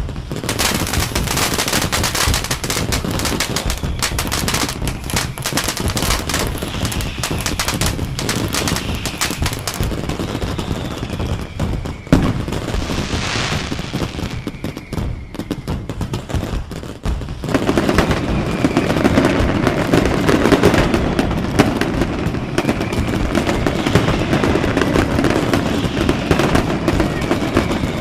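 Fireworks going off in a dense barrage of rapid crackling and bangs, like firecracker strings, with whistles gliding through it and a rising whistle about halfway. It gets fuller and louder about two-thirds of the way in.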